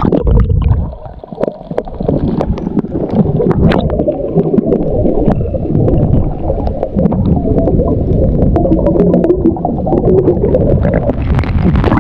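Muffled gurgling and sloshing of water close to the microphone, with scattered clicks and knocks.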